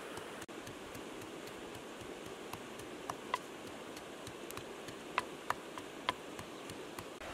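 A few sharp knocks of a wooden pestle striking a small mortar: two about three seconds in and four more a couple of seconds later. Under them runs a steady background hiss.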